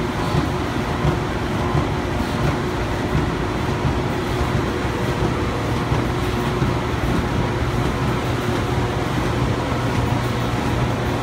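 Automatic five-colour flexo printer slotter die cutter running: a steady mechanical din with a low hum and a faint regular beat, about three beats every two seconds.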